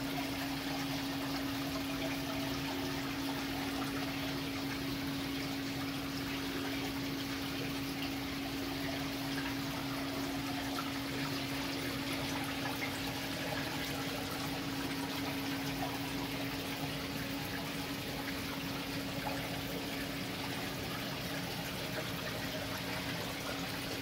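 Steady trickling and circulating water of a running saltwater aquarium, with a steady low hum underneath.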